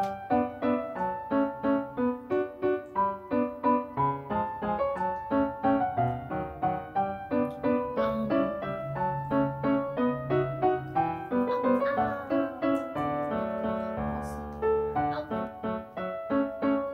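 Background piano music: a light waltz of evenly spaced, ringing notes.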